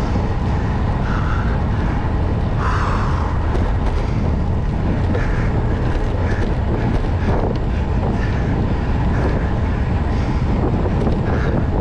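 Wind rushing over the microphone of a camera on a road bike ridden at speed: a steady low rumble.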